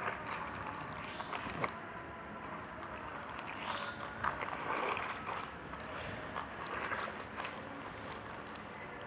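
Slime being handled and pressed by hand: soft squelches and small sticky clicks over a steady background hiss.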